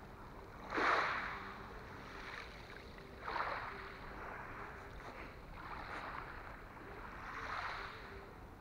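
Small waves lapping on a pebble beach: soft washes of water over stones, swelling and fading every couple of seconds, the loudest about a second in.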